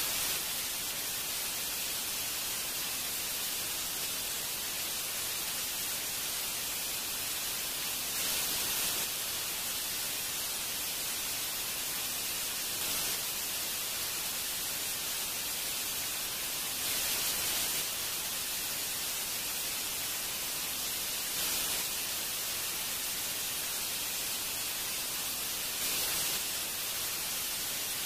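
Steady static-like hiss with no distinct events, brightening briefly about every four to five seconds.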